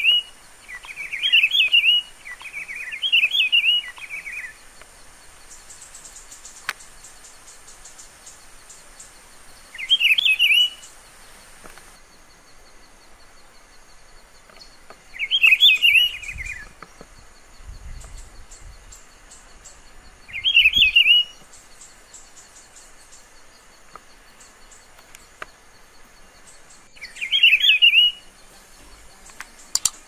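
Rufous-browed peppershrike (pitiguari) singing a short, rich warbled phrase about a second long. It sings three phrases in quick succession, then repeats the phrase every five to seven seconds.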